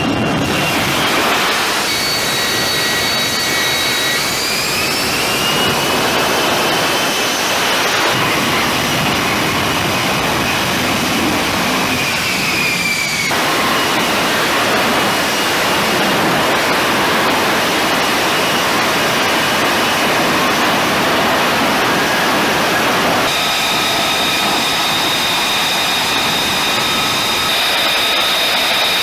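F-35B Lightning II jet engines running at high power: a loud, steady rushing roar with high whining tones. The whine rises about four seconds in and falls away near thirteen seconds, and the sound changes abruptly a few times.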